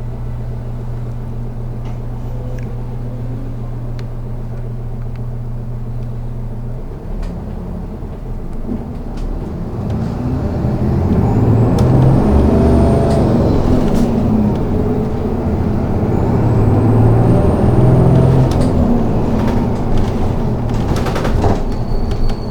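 City bus engine idling steadily, then the bus pulls away and accelerates, getting louder, with the pitch rising twice as it speeds up through the gears, heard from inside the bus. A few knocks and rattles near the end.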